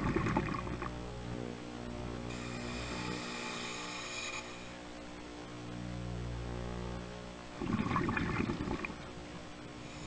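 Scuba diver breathing through a regulator underwater: a burst of bubbling exhaust bubbles at the start and another near the end, with a fainter hiss of inhalation in between.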